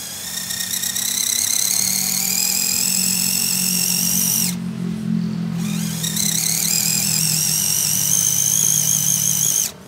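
Small electric motor and gearbox of an RC crawler whining under load on a steep climb, the pitch creeping slowly upward. The whine stops about four and a half seconds in, starts again a second or so later and cuts off sharply near the end.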